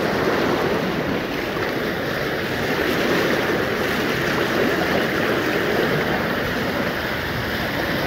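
Steady rushing of the fast-flowing Ganges, an even roar of water with no breaks.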